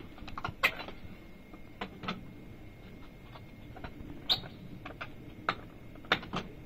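Scattered sharp clicks and knocks from a hinged metal access cover on a generator housing being lifted and propped open, about half a dozen spread unevenly over several seconds.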